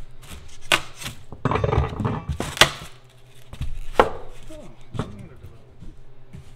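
Rigid foam insulation being worked loose and lifted from between wooden roof rafters: about five sharp knocks of foam against wood, with scraping and rustling between them.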